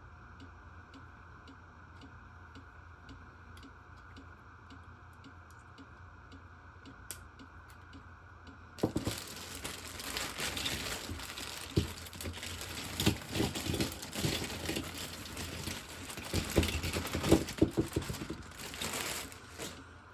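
Faint, steady ticking for the first nine seconds or so; then the packing around the knives from the auction box is handled and unwrapped, a loud irregular crinkling and rustling with sharp crackles.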